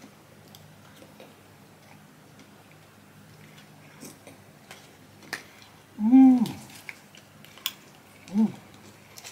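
Plastic spoon lightly clicking and scraping in a sundae cup, a few scattered ticks. About six seconds in comes a short pitched vocal sound that rises and then falls, the loudest thing in the clip, and a shorter one a couple of seconds later.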